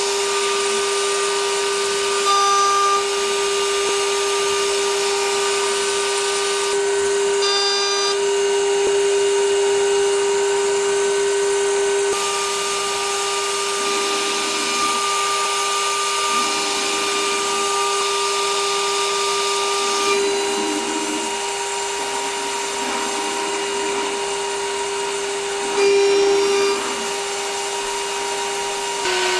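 CNC router spindle running at about 22,500 RPM with a steady high whine, a carbide end mill cutting an aluminium block. Short passes of rougher cutting noise come and go in the second half.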